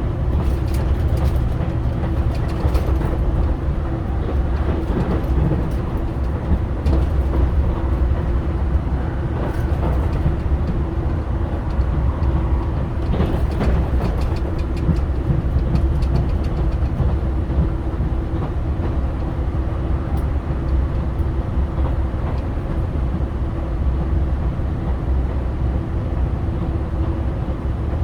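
JR Shikoku 2000 series diesel railcar running at speed, heard from inside the car: a steady rumble of engine and wheels on rail with a constant hum, and a few scattered clicks from the track.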